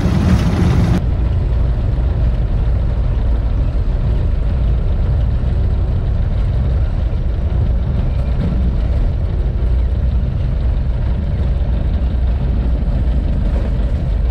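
Piper J-3 Cub's engine running, heard from inside the small cabin as a steady low drone. About a second in, the sound changes abruptly and loses most of its higher tones.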